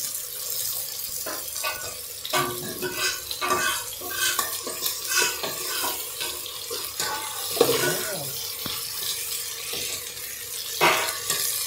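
A metal spoon scrapes and clicks against an aluminium pot while stirring onions and tomatoes frying in oil. A steady sizzle runs underneath.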